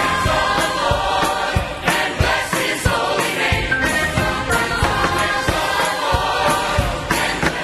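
A large church choir singing with a live orchestra accompanying, in a steady, rhythmic passage with sharp accents on the beat.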